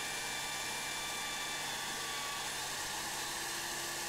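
Electric drill clamped in a vise, running steadily with a polishing wheel on its chuck, buffing a scratched watch case back. An even motor whine with a few faint steady tones.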